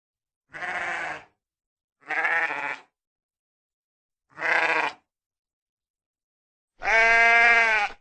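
Sheep bleating four times, each call under a second except the last, which is longer and louder, with dead silence between the calls.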